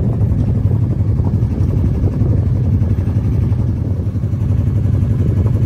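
Yacht's Yanmar inboard diesel engine running steadily under way, a low, even, rapid chugging.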